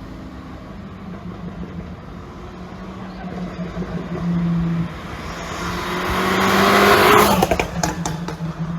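Volkswagen Scirocco R's turbocharged 2.0-litre four-cylinder idling, blipped briefly, then revved steadily up to a peak about seven seconds in. As the revs drop, the exhaust gives a quick run of pops and crackles on the overrun, produced by an ECU pop-and-bang tune.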